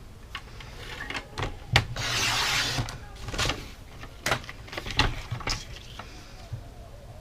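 Inspiro paper trimmer cutting a sheet of paper: the blade carriage is slid along its rail with a short, dense hiss about two seconds in. Around it come sharp clicks and taps from the trimmer and the paper being handled.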